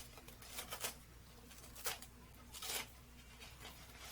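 Stool seat cover and foam being pulled off the particle-board seat bottom after its staples are out: a few short rustling scrapes of fabric and foam, about a second in, near two seconds and near three seconds.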